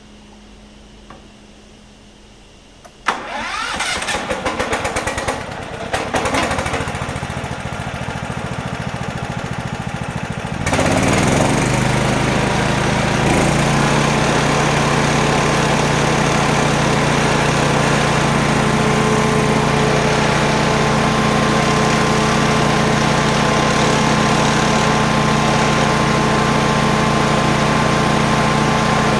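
Stump grinder's Loncin 20 hp petrol engine being electric-started. The starter cranks it with a fast, even chatter for several seconds, then the engine catches about ten seconds in, rises in pitch and settles into steady running.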